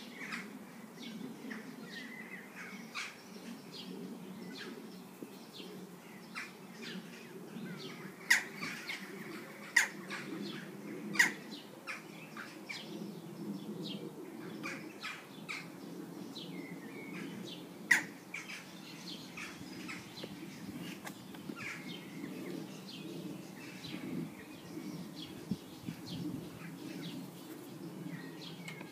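Porcupine chewing raw vegetables: a stream of short, sharp crunches and clicks, with a few loud snaps of bitten vegetable.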